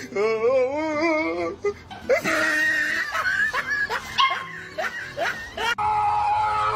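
A dog giving a long, wavering howl, then a string of short yelps, over background music.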